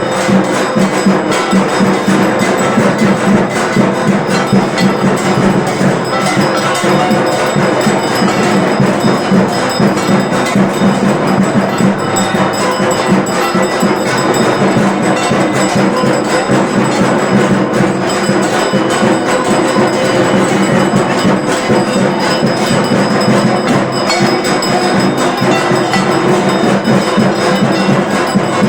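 The clamour of a Durga Puja aarati: bells and gongs ringing with constant rapid drumming, a dense, unbroken din.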